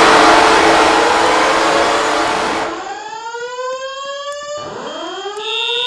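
Simplex fire alarm system sounding. A loud rushing noise cuts off suddenly about three seconds in, and then come rising whoop sweeps, two of them, back to back. Near the end a high beeping tone pulses on and off about once a second.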